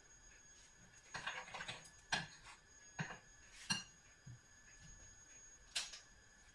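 A metal spoon clinking and scraping against a glass mixing bowl of pancake batter: a quick run of scrapes about a second in, then single light clinks about once a second, and a sharper clink of a utensil near the end.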